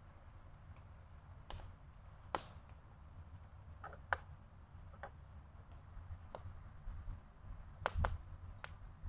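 Wood campfire crackling: scattered sharp pops and ticks at irregular intervals, a few close together near the end, over a low steady rumble.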